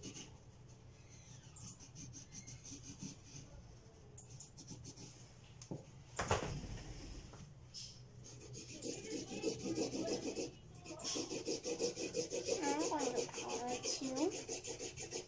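Felt-tip marker scribbling on paper: rapid scratchy back-and-forth strokes as an area is coloured in, with a single knock about six seconds in. A voice is heard over the strokes in the second half.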